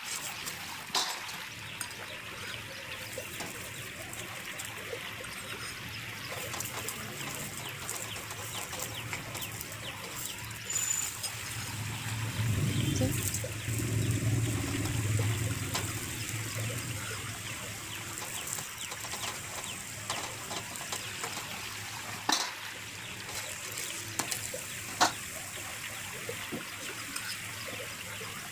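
Cauliflower paratha sizzling in oil on a hot iron tawa, a steady frying hiss, with a few sharp clicks of a steel spatula pressing it against the pan. A low hum swells for a few seconds in the middle.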